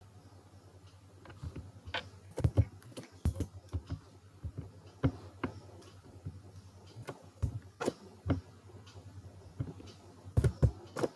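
Computer keyboard typing: irregular keystrokes in short runs, with pauses between them.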